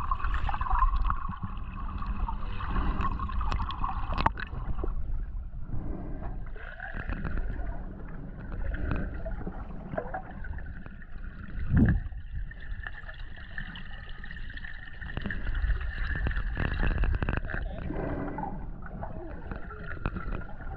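Muffled underwater sound: low rumbling water noise and gurgling, with a faint steady high whine and a few knocks, the loudest about twelve seconds in.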